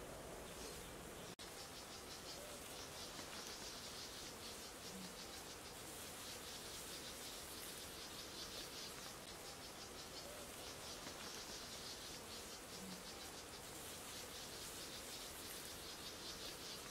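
Insects chirring: a faint, high-pitched, fast-pulsing trill in long spells with short breaks.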